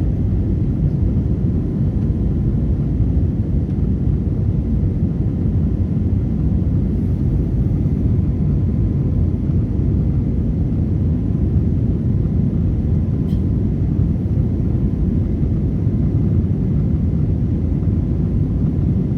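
Passenger airplane's engines giving a steady low rumble that holds even throughout.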